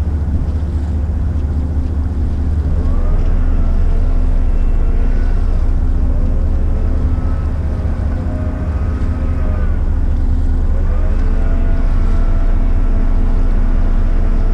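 Diesel engines of a McKinna 65 motor yacht running at low speed, a heavy steady rumble, with wind buffeting the microphone. A whine rises, holds and falls away several times.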